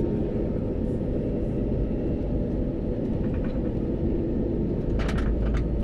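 Steady airliner cabin rumble: engine and airflow noise heard from inside the cabin. About five seconds in there are a few short clicks or rattles, and the deep rumble grows stronger.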